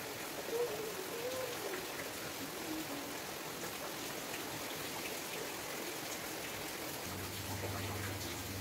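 Steady rain falling, an even hiss throughout, with a person humming a wavering tune over it in the first few seconds. A low steady hum comes in about seven seconds in.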